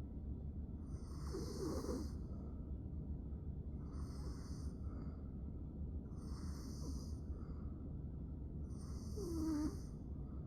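A sleeping woman with severe obstructive sleep apnea snoring: four snoring breaths, roughly every two and a half seconds.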